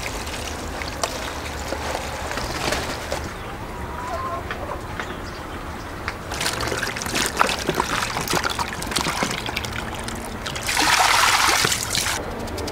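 Running tap water splashing and trickling over vegetables being washed by hand in a basin, with small knocks and splashes from the handling. The water runs loudest for about a second and a half near the end.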